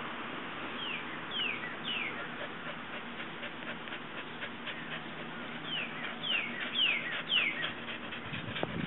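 Bird calls: short whistled notes each sliding downward, three about a second in and four more near the end, over a run of faint clicks.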